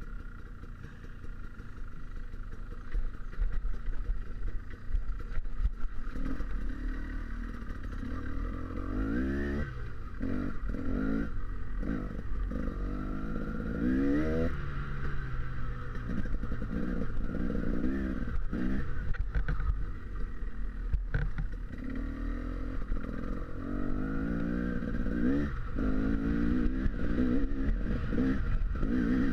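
Off-road motorcycle engine, heard from on board, revving up and down over and over as it rides a rough dirt trail, with clatter from the bumpy ground.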